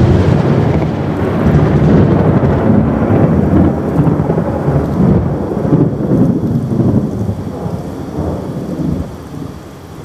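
Thunder following a lightning strike: a loud, low, fluctuating rumble that rolls on for about nine seconds, then dies away near the end.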